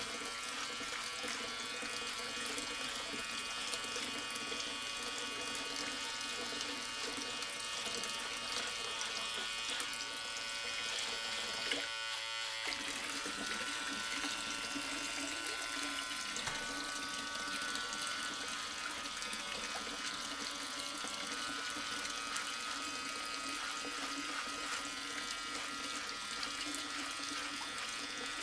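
A small electric motor whirring steadily, with water running, briefly dropping out about twelve seconds in.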